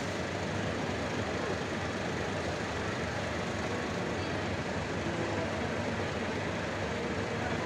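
Intercity coach running at low speed as it pulls out of the bus terminal, a steady engine rumble mixed with the general hum of the terminal.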